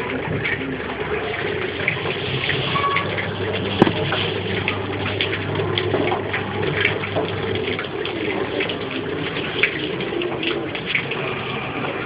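Water gushing steadily through the water heater's plumbing, with a low electric pump-motor hum that fades about eight seconds in and scattered small clicks; one sharper click about four seconds in.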